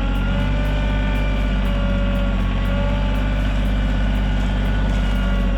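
Rural King RK24 compact tractor's diesel engine running steadily as the tractor is driven in reverse.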